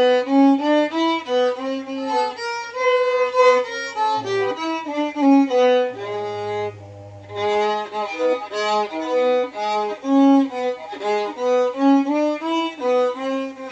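Violin played note by note through do-re-mi scales on its four strings, climbing to a high do, with a brief pause about six and a half seconds in.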